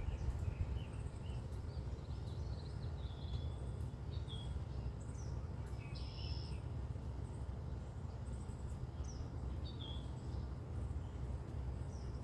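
Several birds chirping and whistling in short calls, scattered throughout, over a steady low rumble.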